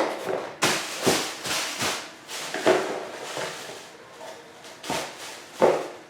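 Irregular rustling and light knocks of office chair parts and hardware being handled, taken out of their packaging and set down, with a pause of about a second near the middle.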